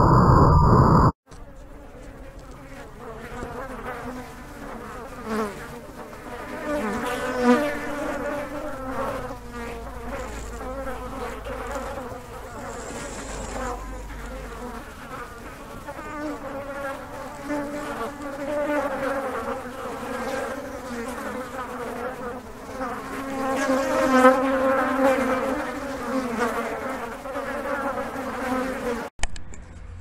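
A loud rush of noise cuts off about a second in, then blowflies buzzing: a steady humming drone of wingbeats that swells and fades, loudest around three-quarters of the way through.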